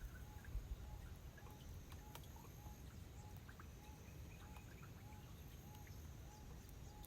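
A faint short call repeated steadily, about two a second, over quiet outdoor background noise.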